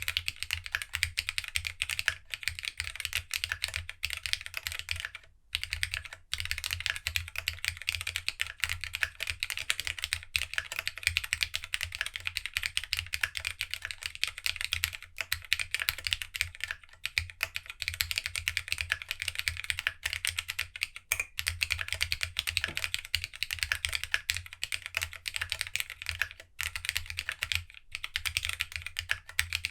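Continuous fast typing on a Geonworks W1-AT mechanical keyboard, built plateless with no foam and fitted with TOHSI GSA keycaps: a dense run of rapid key clacks, with a brief pause about five seconds in.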